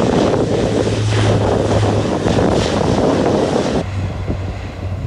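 C-130-type military turboprop transport taking off, its propellers giving a steady low drone under heavy wind noise on the microphone. The noise drops off suddenly about four seconds in, leaving the low hum.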